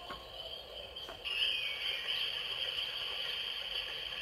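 FurReal Munchin' Rex animatronic toy dinosaur's built-in speaker playing a jungle sound effect, a steady high-pitched sound that starts about a second in.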